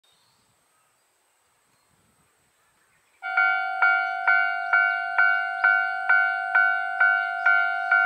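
Japanese railway level-crossing warning bell starting up about three seconds in and ringing in an even, steady rhythm of about two strikes a second, the signal that a train is approaching and the barriers are coming down. Near silence before it starts.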